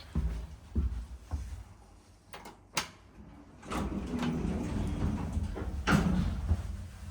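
Old Toshiba Elemate passenger elevator's doors sliding and clunking, then two sharp clicks, followed by a few seconds of low rumbling with a loud clunk near the end.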